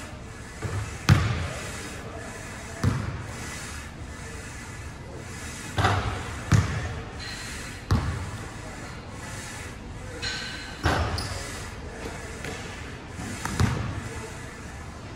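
Basketballs bouncing on a hardwood gym floor: about seven hard bounces at irregular gaps, each echoing in the large hall.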